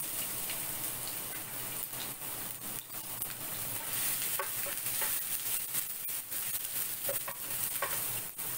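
Onion sautéing in hot canola oil in a pan: a steady sizzle, with scattered light clicks of a utensil stirring it.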